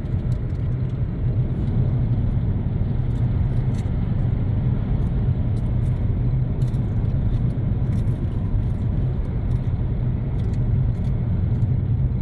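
A car in motion: a steady low rumble of engine and road noise.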